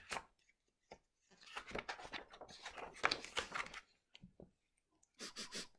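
Paper rustling and crackling as a page of a picture book is turned, faint, for a couple of seconds in the middle.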